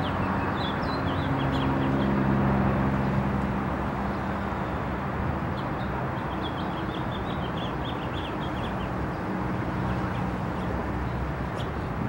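House finch singing: a quick warble of high twittering notes, in the first second and again from about five to nine seconds in, over the steady noise of city traffic.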